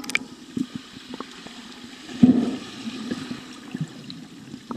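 Pool water heard from under the surface: a splash as the microphone goes under, then a muffled rushing and gurgling of water stirred by swimmers' fin kicks and bubbles, with a louder surge about two seconds in.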